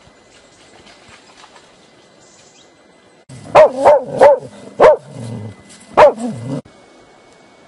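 A dog barking: five loud, sharp barks over about two and a half seconds, starting about three and a half seconds in.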